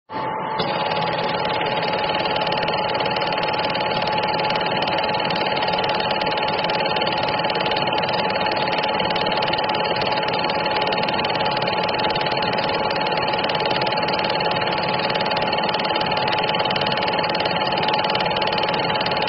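Film projector running: a steady mechanical whir with one constant tone through it, starting abruptly.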